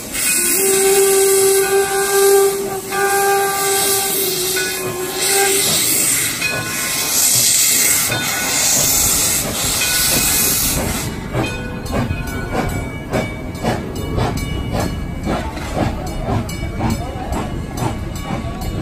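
Steam whistle of a 19th-century 4-4-0 steam locomotive blowing one long blast over loud steam hiss. The whistle stops about five seconds in and the hiss carries on to about halfway. Then comes a fast rhythm of clicks and knocks as the train's coaches roll past.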